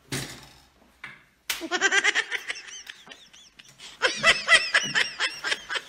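Hearty laughter in quick repeated bursts, starting about one and a half seconds in and growing louder about four seconds in, after a brief noisy sound at the start.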